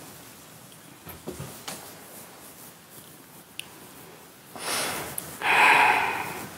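A person breathing loudly right against a phone's microphone: a short breath, then a louder one lasting about a second, after a few seconds of faint room noise with small clicks.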